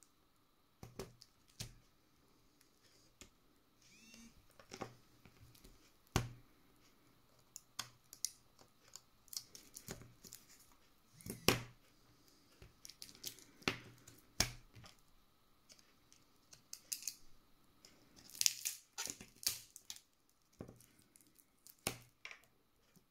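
Smartphone parts being handled on a wooden tabletop: irregular sharp clicks and taps of plastic and metal, with light rustling between them.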